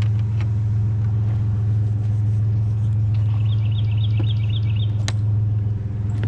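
Truck engine running with a steady low hum. A quick run of about five high chirps comes about halfway through, and there is a single sharp click near the end.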